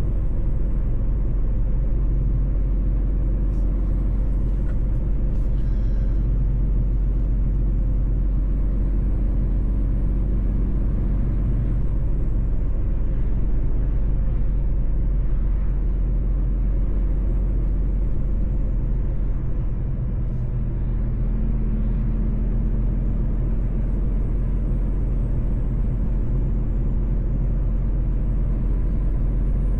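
Mercedes-Benz truck's diesel engine and road rumble running steadily while driving. About two-thirds through, the level dips briefly and the engine note then settles at a slightly different pitch.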